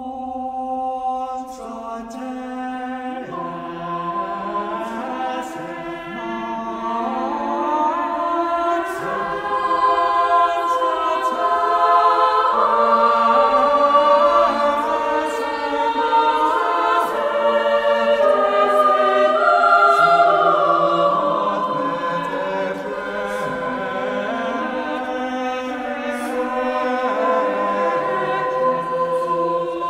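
Background music: a choir singing a slow piece in several parts with long held notes, starting suddenly and growing louder over the first ten seconds or so.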